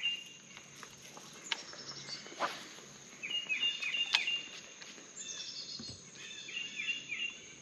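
A songbird singing two runs of short, quickly repeated, downward-sliding whistled notes, over a steady high-pitched insect buzz. There are a few faint clicks as the spinning rod is cast.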